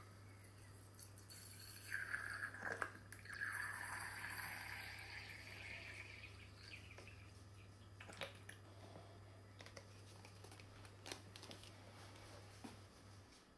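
Faint trickle of water squeezed from a plastic bottle into the cooling-water hopper of a model vacuum engine, running for a few seconds from about two seconds in, with a couple of small clicks.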